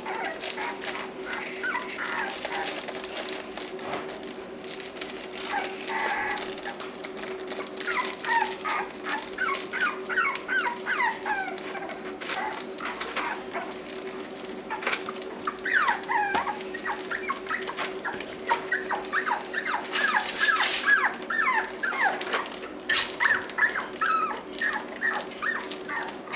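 Six-week-old Cavalier King Charles Spaniel puppies whining, a run of short, high cries that fall in pitch, coming in clusters with brief pauses between.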